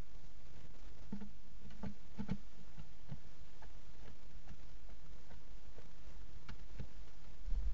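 Scattered light ticks and taps as a barn owl's talons step and scrape on the plywood of its nest box, with a dull thump near the end, over a steady low electrical hum.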